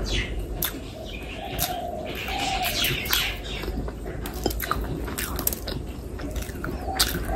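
Close-miked eating sounds of a woman eating biryani and curry by hand: sharp mouth clicks and smacks as she chews. A low, wavering cooing hum comes twice, about a second and a half in and again near the end.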